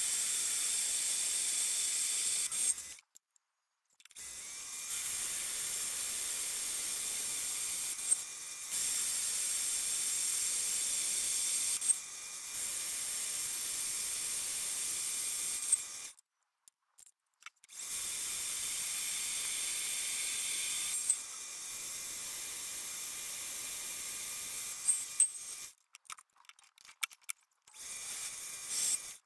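Paulimot mini lathe running under power while turning a rod: a steady high-pitched motor whine with hiss, in stretches of a few seconds each, broken by sudden cut-offs and short silences, with a faint click as some stretches end.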